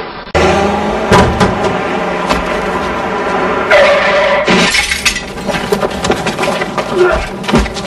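Glass breaking and shattering: a clattering run of crashes and clinks that starts suddenly just after the start, with a brighter burst of smashing near the middle.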